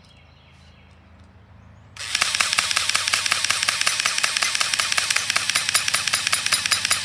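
Battery-powered M74DP mini airsoft AEG firing on full auto: a fast, even, mechanical rattle of shots that starts about two seconds in and keeps going without a break.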